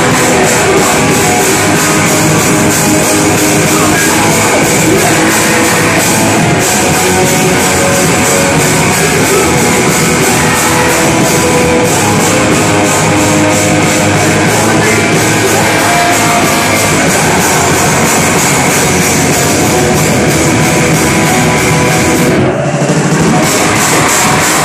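Live rock band playing loud: electric guitars, bass guitar and drum kit, with a short break in the cymbals and highs near the end.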